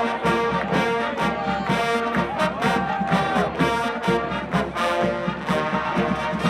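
College marching band playing a patriotic march: full brass with trombones and trumpets carrying held and sliding notes over a steady drum beat.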